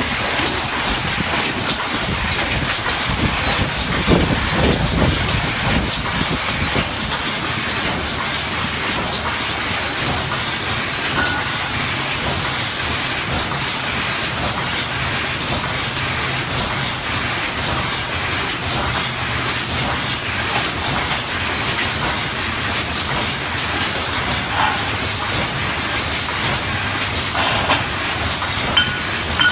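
Automatic aerosol can filling line running: a steady hiss with a dense, continuous clatter of empty tinplate aerosol cans rattling against each other on the infeed table and conveyor.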